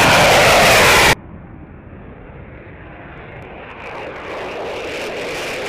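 Military jet engine noise: a very loud, close roar that cuts off suddenly about a second in, then a quieter jet roar that swells from about four seconds in.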